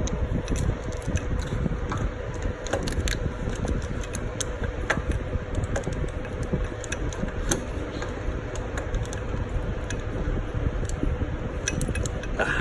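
Scattered light metallic clicks and clinks of bolts and hand tools while the alternator mounting bolts are being threaded in, over a steady low rumble with a faint hum.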